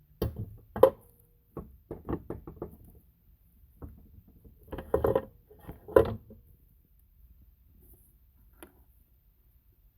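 Parts of a disassembled Borg Warner two-speed transfer case being handled: scattered knocks and clinks, a sharp one about a second in and clusters around five and six seconds, some with a brief metallic ring.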